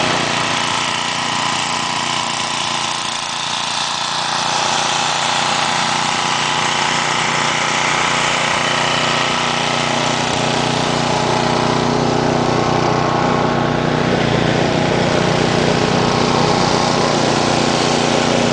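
Engine running steadily at an even speed, most likely the machine clearing the snow.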